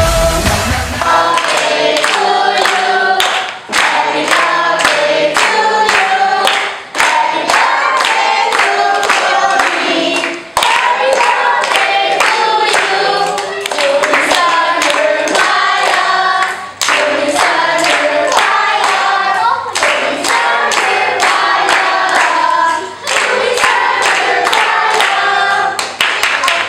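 A group of children and adults singing a birthday song together, clapping along on a steady beat.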